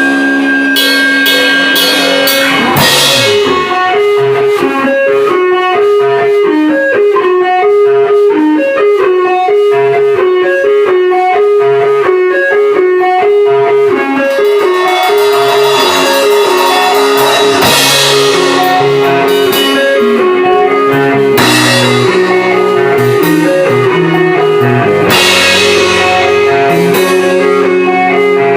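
Rock band playing live: an electric guitar picks a fast, repeating single-note riff over drum kit and bass, with cymbal crashes several times.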